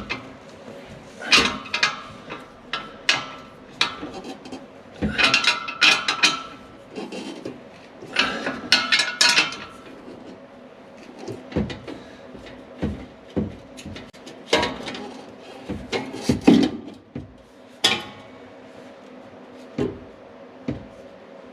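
Metal clanks, rattles and knocks in bursts, some briefly ringing, with single knocks between: hand tools and the axle-back exhaust muffler and its clamp being worked into place and tightened.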